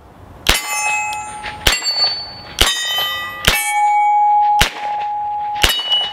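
Six revolver shots from a 1994 Colt Python .357 Magnum with a 6-inch barrel, fired double action about a second apart. After each shot a steel plate target rings with a clear, steady tone, and the pitch differs from plate to plate as the hits ring out.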